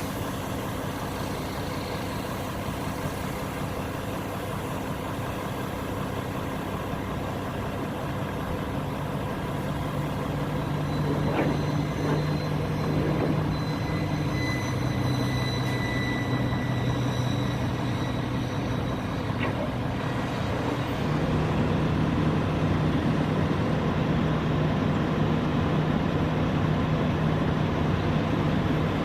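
Diesel truck engine running steadily, its note shifting up a little twice, with a couple of faint clicks.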